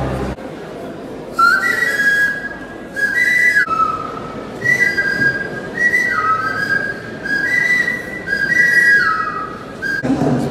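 A high whistled tune in short phrases of two or three notes that step up and down, repeated with brief pauses between them.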